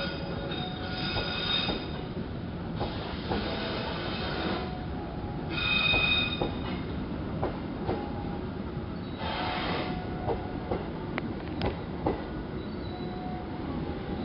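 Passenger train coaches rolling slowly through a tight curve: a steady rumble with wheel clacks and repeated bursts of high-pitched wheel flange squeal, the loudest about six seconds in and another near ten seconds.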